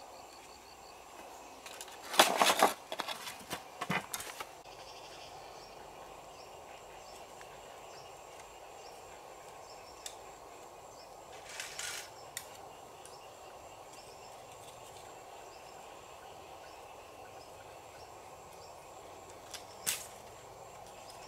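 Bamboo poles knocking and rattling against one another for a couple of seconds, starting about two seconds in, with a shorter clatter near the middle and a single sharp click near the end. Underneath is a steady forest background with faint, regular high chirps.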